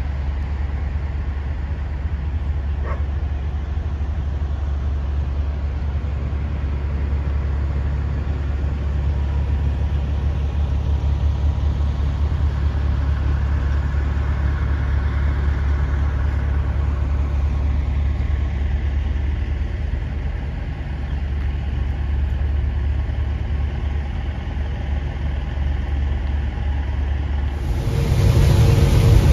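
Steady low rumble of idling trucks and traffic. About a second before the end it jumps to a louder, fuller engine and road noise from inside a truck cab.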